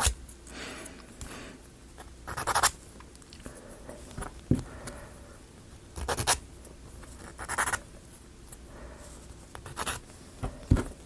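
Sandpaper rubbing on small plywood model parts in short, irregular scratching strokes.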